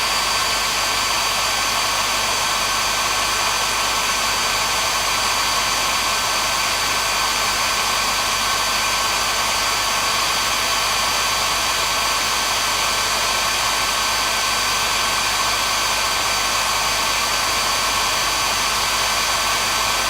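Handheld hair dryer running steadily: a constant rush of air with a steady high motor whine over it.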